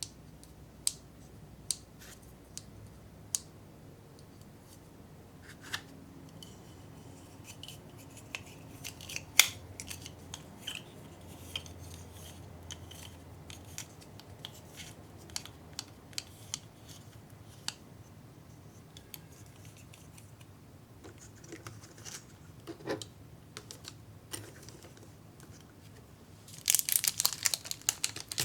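Scattered light clicks and taps of small plastic candy-kit pieces being handled, then a dense run of rapid clattering near the end.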